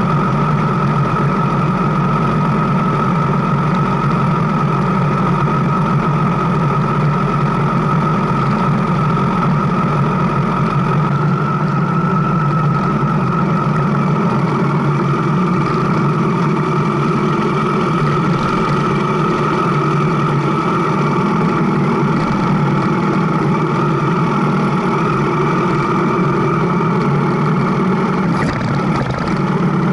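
Motorcycle engine running at a steady, unchanging pitch.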